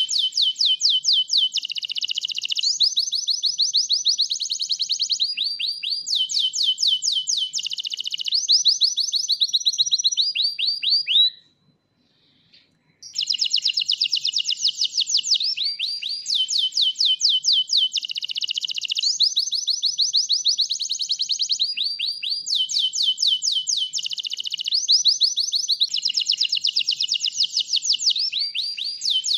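White domestic canary singing in full song: fast trills of rapidly repeated high notes, switching from one roll to another of a different speed. A single break of about a second and a half falls a little before the middle.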